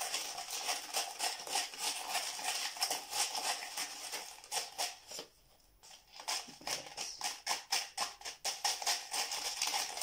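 Crushed glass pieces clicking and rattling against each other and the cup as they are stirred with a wooden craft stick to work a few drops of dye through them. The clicks come quickly and continuously, with a short pause a little past the middle.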